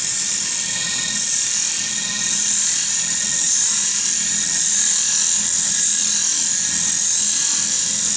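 Skew chisel used as a scraper against a spinning wood-and-resin medallion blank on a lathe: a steady, high hiss of cutting, with a faint low hum from the lathe underneath.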